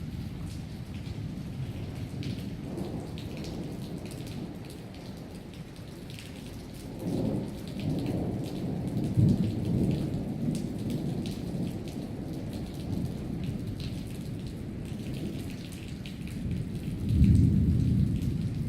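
Thunderstorm: steady rain pattering, with thunder rumbling. One rumble builds about seven seconds in, and a louder one comes near the end.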